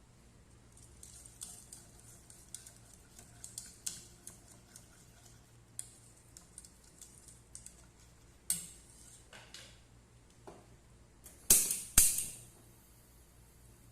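Kitchen utensils clicking and scraping against dishes, with a sharp knock past the middle and two loud knocks close together near the end.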